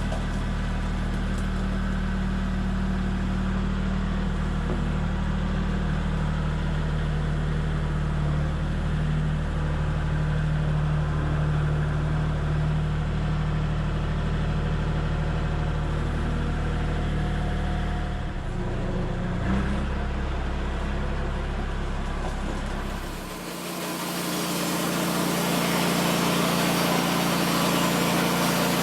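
Small engine running steadily. Its pitch shifts about two-thirds of the way through, and shortly after the sound changes abruptly: the low hum drops away and a higher, noisier rushing sound takes over.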